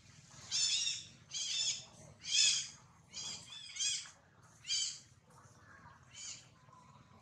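Baby macaque crying: about six short, high-pitched calls in quick succession, each rising and falling in pitch, then a fainter one near the end.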